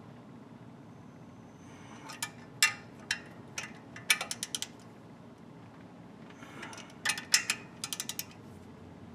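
Ratchet wrench clicking in short irregular runs of sharp clicks, with a fast run of clicks near the middle.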